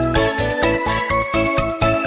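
Upbeat background music with a steady beat and bright bell-like notes.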